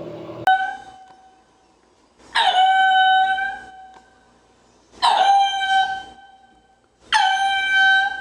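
An animal calling four times, each a high, steady cry about a second long, the first one short.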